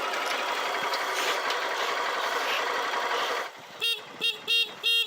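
A steady rushing noise, then, near the end, a quick run of short honking animal calls, about three a second.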